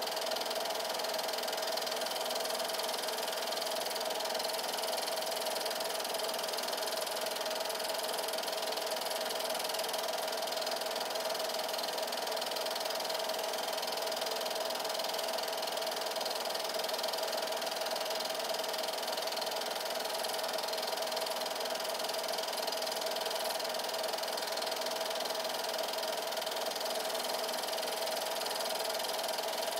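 8mm film projector running: a steady motor whir with a constant hum and hiss.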